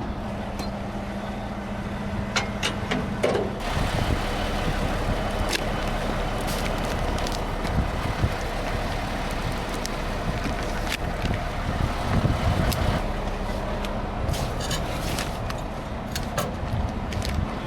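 Heavy diesel machinery running steadily, with scattered knocks and clanks. The engine sound grows heavier and rougher about three and a half seconds in.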